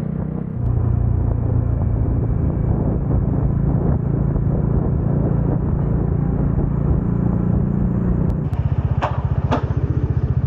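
Motorcycle engine running, getting louder a little under a second in. About eight seconds in it changes to an even pulsing beat, and two short high chirps follow soon after.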